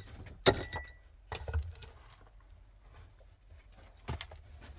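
A few sharp clicks and clinks of hard objects being handled or knocked together, the loudest about half a second in with a brief ringing tone, then a cluster of lighter knocks and another click near the end.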